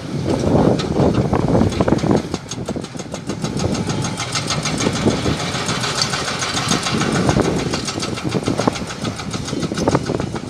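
Hydraulic breaker on a Sany SY215 excavator hammering rock in rapid, evenly spaced blows, several a second, over the running diesel engine. The hammering starts about two seconds in and stops near the end.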